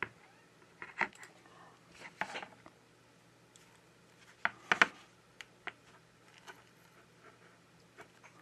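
Small hand tools, such as plastic picks, a card and a suction cup, working on an iPhone to open its screen. Scattered short clicks and scrapes, with the loudest cluster about halfway through, over a faint steady hum.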